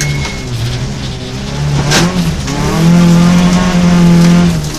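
Rally car engine heard from inside the cockpit: lower revs for the first couple of seconds, a sharp knock about two seconds in, then the revs climb and hold steady and high before dropping just before the end.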